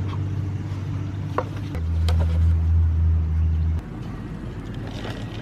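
Low, steady engine hum that grows louder and shifts in pitch a little under two seconds in, then cuts off abruptly just before four seconds in.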